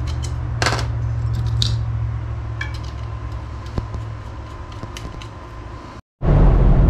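Short clicks and scrapes of crossbow bolts and their tips being handled, over a steady low hum. About six seconds in it cuts off for a moment, then gives way to loud, steady road and engine noise inside a moving car.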